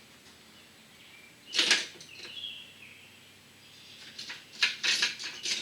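Metal hand tools clattering and clinking as they are rummaged through for a magnetic pickup tool: one loud rattle about a second and a half in, then a quick run of clatters near the end. Birds chirp faintly in the background.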